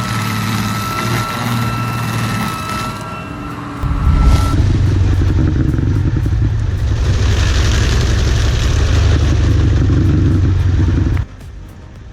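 Heavy machine engine running. It begins as a steady hum with a high whine over it. About four seconds in, a much louder, deeper running noise takes over, then cuts off abruptly near the end.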